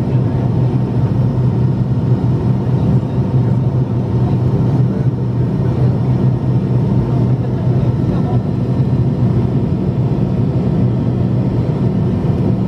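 Steady cabin noise of an MD-80 airliner climbing after takeoff: the drone of its rear-mounted Pratt & Whitney JT8D turbofans at climb power and the rush of air past the fuselage, heard from inside the cabin, with a constant low hum.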